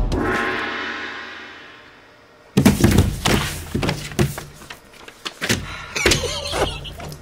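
A short musical chord rings out and fades away, then loud thumps and knocks start suddenly about two and a half seconds in, followed by smaller scattered knocks.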